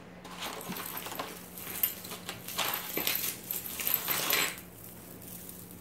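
Metal costume jewelry jingling and clinking while being rummaged and pulled out of a bag, with rustling, for about four seconds before it quietens.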